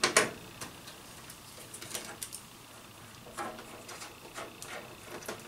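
Scattered light clicks and ticks from the side panel of a PC case being worked loose by hand, with the sharpest click just at the start and small clusters of taps later on.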